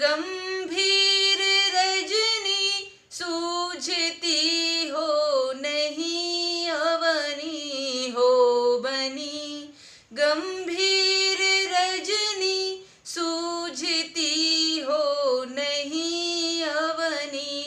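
A woman singing a Hindi motivational song solo and unaccompanied, in long, held melodic phrases with brief breaths between them.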